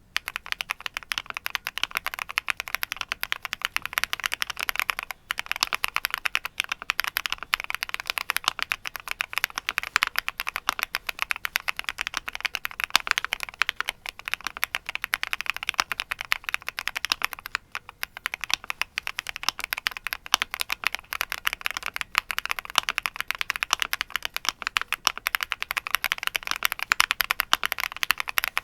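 Fast, continuous typing on a Qwertykeys QK75 custom mechanical keyboard: a dense stream of key clacks, with brief pauses about five seconds in and near eighteen seconds.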